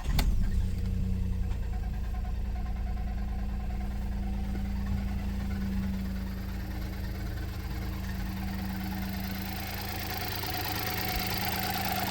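Volkswagen up! TSI's 1.0 three-cylinder turbo engine starting and then idling steadily, with a knocking noise that sounds like engine knock. The owner traces the noise to a part that was not refitted properly after a service and is vibrating.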